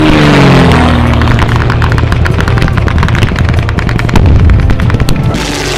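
A low-flying propeller aircraft's engine passing overhead, its pitch falling as it goes by, over continuous rifle and machine-gun fire, with a loud blast about four seconds in.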